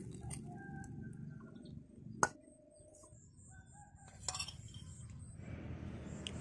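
A rooster crowing in the background in drawn-out, pitched calls, with two sharp clicks about two and four seconds in.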